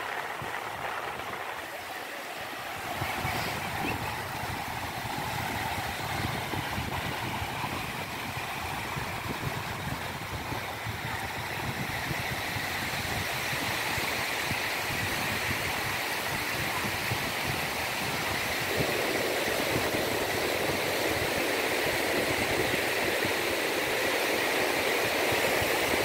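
North Sea surf: small waves breaking and washing up a shallow sandy beach, a steady rush that grows slowly louder and fuller about two-thirds of the way in.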